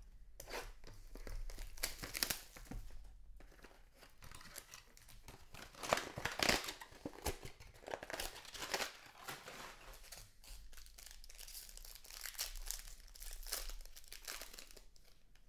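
A trading card pack's wrapper being torn open and crinkled by hand, irregular crackling and tearing that is loudest about six seconds in.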